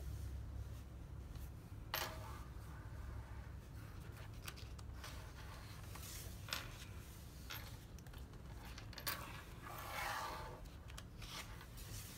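Paper pages of a large paperback coloring book being turned by hand: a few short, faint paper crackles and taps, and a longer swish of a page being flipped near the end.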